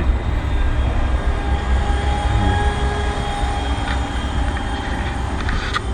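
A heavy vehicle running by: a steady low rumble with faint, steady whining tones above it.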